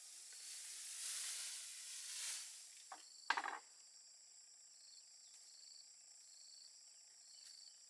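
Outdoor ambience: a high, repeating insect-like chirp, swells of hissing noise, and one short sharp sound a little over three seconds in.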